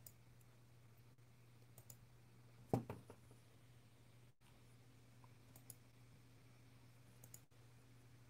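Near silence: a low steady hum with a few faint clicks, the loudest a single short knock about three seconds in.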